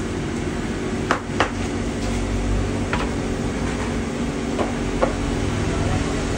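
Baked bread loaves being knocked out of their metal tins onto a metal baking tray: several sharp knocks, a pair about a second in, another a couple of seconds later and two more near the end, over a steady low machine hum.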